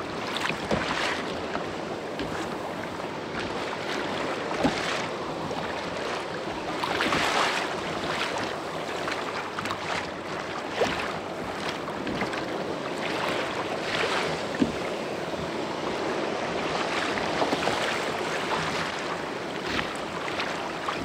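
Choppy sea water sloshing and splashing around a kayak, swelling every few seconds as waves pass, with wind buffeting the microphone and a few short sharp slaps of water on the hull.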